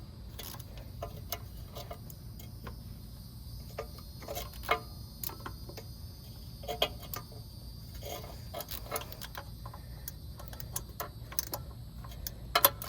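Irregular metallic clicks and taps of hand tools tightening the wiring nuts on a bus starter, over a steady low hum.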